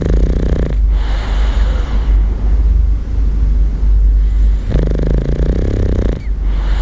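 Bulldog snoring in slow cycles: a buzzing snore that stops about a second in and comes again about five seconds in, with a rough breath between, over a steady low rumble.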